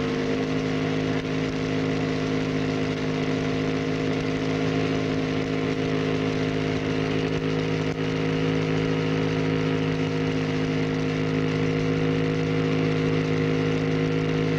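Small electric motor running at a steady high speed after being turned up. It gives an even, loud hum of several stacked pitches as it shakes a rod and rubber diaphragm that bounce plastic balls around a tube.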